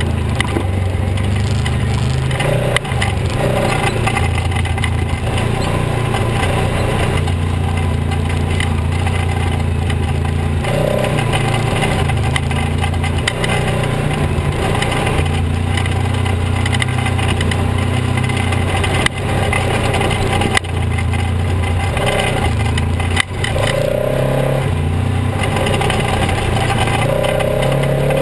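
Polaris RZR XP 900 side-by-side's twin-cylinder engine running under load while driving a rocky trail, its note stepping up and down with the throttle. A few sharp knocks from the chassis going over rocks stand out.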